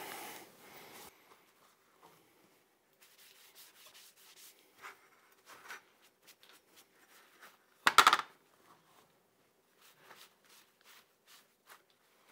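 Cloth rag rubbing paste wax onto heated welded steel clamp hangers in faint, intermittent strokes. One louder knock comes about two-thirds of the way through, as a steel hanger is set down on the plywood board.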